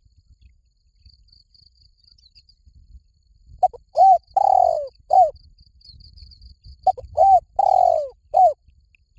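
Spotted dove cooing: two phrases, starting about three and a half seconds in and again near seven seconds. Each phrase is a few quick short notes, a long drawn coo and a short final note. Faint high insect chirping runs underneath.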